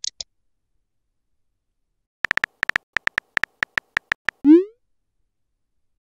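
Texting-app keyboard sound effects: a quick run of about fifteen sharp key clicks as a message is typed, then a short rising swoosh as it is sent.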